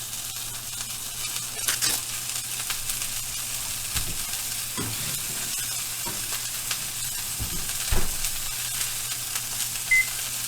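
Burger patties sizzling and frying in a pan on the stove, with a few knocks of utensils or cookware. Near the end comes a short electronic beep.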